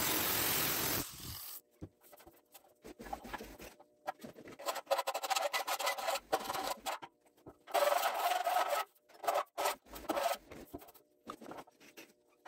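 Angle grinder with a thin cutting disc cutting into a metal tube, stopping about a second in and spinning down. Then irregular scraping strokes of a hand file cleaning up the notch just cut in the tube.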